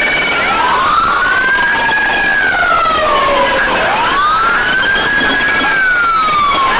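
Police sirens wailing, the pitch rising and falling slowly over a few seconds, with two sirens overlapping out of step.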